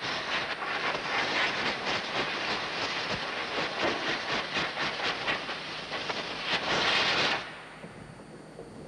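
Compressed-air blow gun blasting air over washed fuel valve parts to clean and dry them: a loud, rough hiss that cuts off suddenly near the end.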